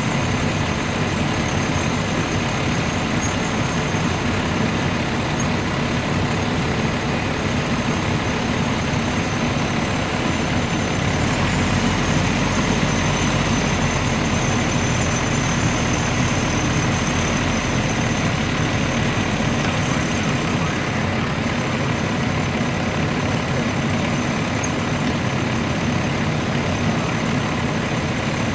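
A steady engine running, like a motor vehicle idling, with a heavier low rumble for several seconds in the middle.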